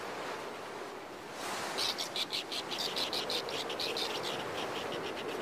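Wind blowing, then from about two seconds in a quick, high-pitched chattering call of snow petrels, a run of short dry pulses about six a second that lasts about three seconds.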